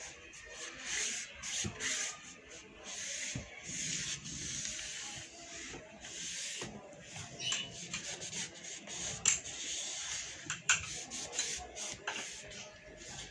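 Toothbrush scrubbing a wooden bed frame in repeated rubbing strokes, with a few light knocks against the wood.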